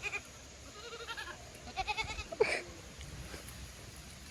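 Goats bleating: three short, quavering bleats in quick succession over the first two seconds, then a brief, sharper call about two and a half seconds in.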